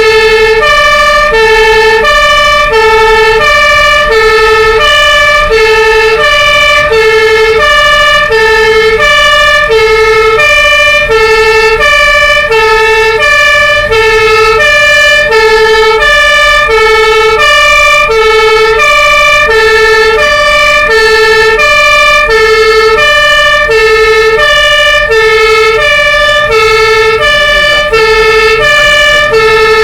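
German fire engine two-tone siren (Martinshorn) sounding loudly, alternating steadily between a low and a higher note, each held about half a second. A truck engine runs beneath it.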